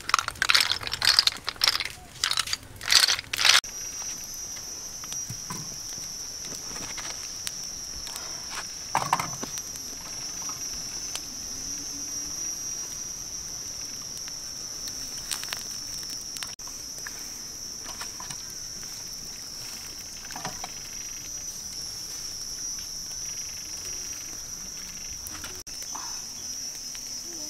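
Insects droning steadily with a high-pitched shrill, after a run of loud sharp clattering in the first few seconds; a few faint knocks come and go.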